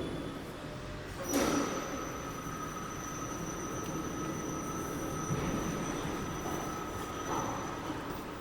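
A metallic clank, then a steady high-pitched metal squeal held for about six seconds before it stops, over a steady workshop hum.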